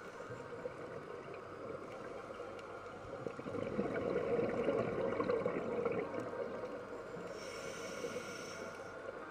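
A scuba diver's breathing heard underwater through a camera housing: the regulator gives a swelling rush of exhaled bubbles through the middle, then a short hiss of inhalation near the end, over steady watery noise.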